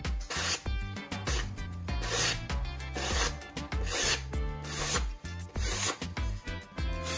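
Freshly sharpened kitchen knife slicing through a held sheet of paper, a rasping hiss with each of many quick strokes, over background music.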